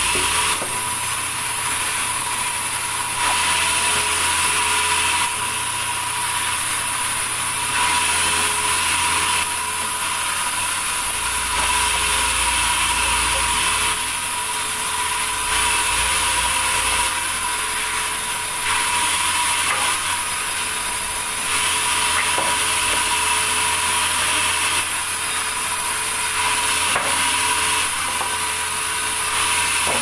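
Sawmill vertical band saw running and cutting through thick timber boards, a steady whine under sawing noise that steps up and down every few seconds as the boards are fed through.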